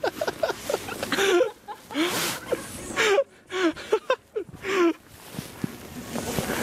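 A woman laughing in several breathy peals, with short gasps for breath between them.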